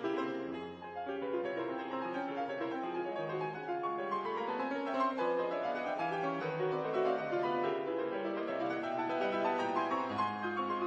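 Background instrumental music led by a piano, a steady flow of notes with rising runs.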